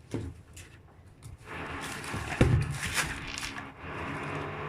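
Objects being handled on a table: a click just after the start and a sharp knock about halfway through, over a steady mechanical hum that comes in about a second and a half in.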